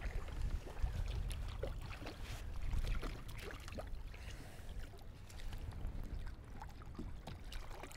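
Water sloshing and lapping against a kayak hull, over a steady low rumble, with a few small scattered knocks.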